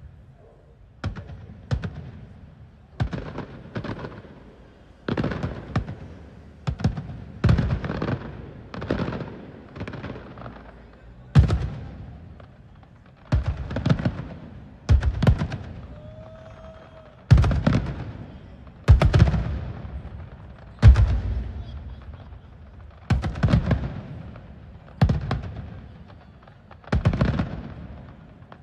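Aerial fireworks shells bursting: a long series of sharp bangs every second or two, often in close pairs, each trailing off in a rumbling echo.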